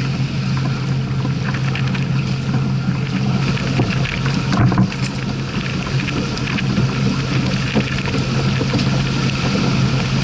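A sailing yacht under sail: water rushing along the hull and wind, a steady rushing noise with a low rumble underneath.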